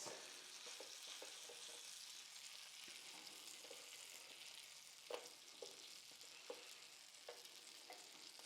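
Pancakes sizzling faintly in a frying pan, a steady hiss with a few soft knocks in the second half.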